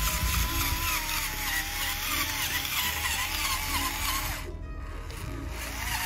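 Whine of a DIY remote-control 4x4 tractor model's electric drive motor and gearbox under load, its pitch wavering as it pulls a loaded trolley. About 4.5 s in the motor stops for about a second, then starts again with a rising whine. Background music plays underneath.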